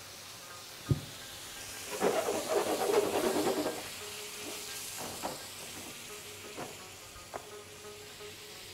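Carrot slices, onions and garlic sizzling with a steady hiss in a hot nonstick frying pan with a little water added for a carrot purée. A sharp knock comes about a second in. From about two seconds in, a silicone spatula stirs and scrapes the pan for under two seconds, the loudest part, and a few light taps follow.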